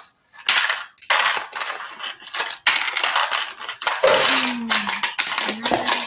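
Pennies clinking and clattering against clear plastic tubs as they are scooped with a plastic spoon and dropped, a dense run of quick clicks starting about half a second in.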